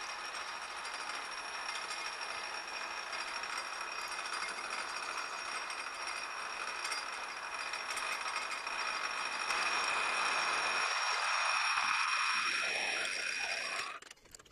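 Metal lathe running with a steady high whine while facing the end of aluminium bar stock held in a collet chuck. It grows louder about ten seconds in, then stops suddenly near the end.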